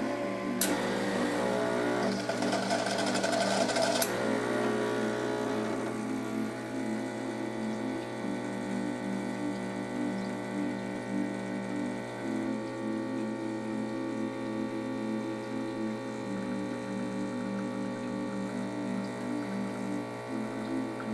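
Quick Mill Monza Deluxe super-automatic espresso machine brewing: its built-in grinder runs for about three and a half seconds near the start, with a click at each end, and then the machine's pump keeps up a steady buzzing hum.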